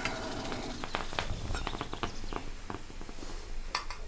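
Light, irregular clicking of buttons on a handheld game controller, a few clicks a second.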